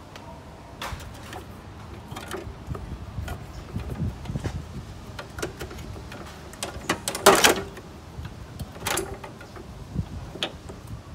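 Scattered metal clicks and knocks of work on a car's A/C condenser mounting under the hood, with a louder clatter about seven seconds in and single knocks near nine and ten and a half seconds.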